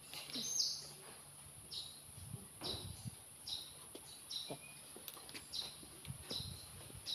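Hand tools working on the rocker arms of a six-cylinder Komatsu diesel engine's cylinder head during valve-clearance adjustment: a run of short high clicking strokes, roughly one every second, with light metal knocks and handling noise.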